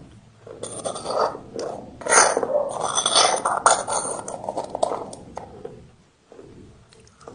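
Gritty crunching and scraping of brick being bitten and chewed, with many sharp clicks, dying down about five and a half seconds in.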